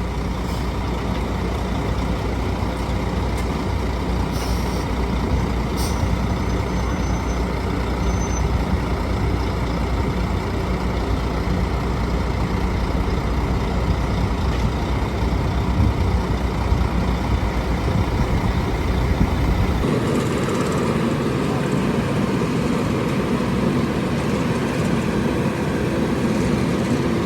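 Heavy diesel road-works machinery and trucks running steadily. About twenty seconds in the sound changes abruptly: the deep rumble drops away and a rougher, higher machine noise takes over.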